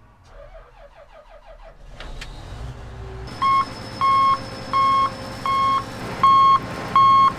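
Heavy vehicle's engine running while its reversing alarm beeps, starting about three and a half seconds in, one steady single-pitch beep roughly every two-thirds of a second.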